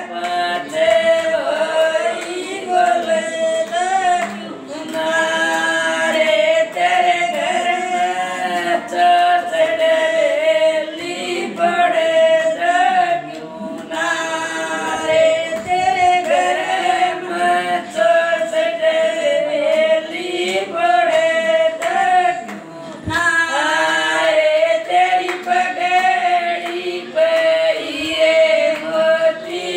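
Several women singing a sagai geet, a North Indian betrothal folk song, together and unaccompanied, in long held, wavering notes.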